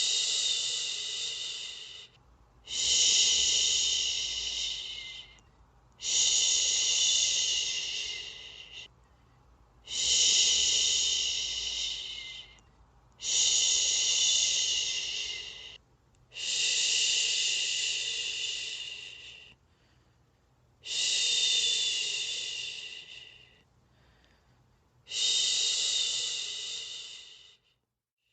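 A person shushing, a long 'shhh' repeated eight times in a slow, even rhythm, each one starting strong and fading off, with short pauses for breath between. It is a soothing white-noise shush to settle a baby to sleep.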